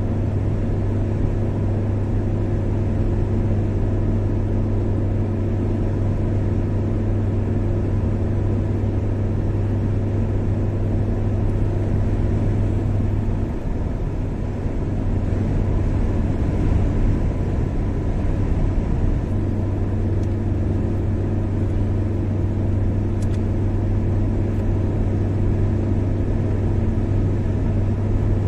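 Car driving along a highway: steady engine drone and road noise, the low hum easing slightly for a few seconds mid-way.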